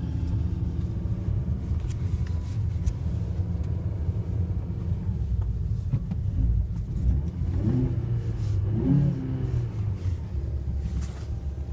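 2013 Fiat 500 Sport's four-cylinder engine running under way, with a steady low rumble and the open intake sound of a broken airbox, much like a cold air intake. Its pitch rises and falls briefly a couple of times about eight seconds in.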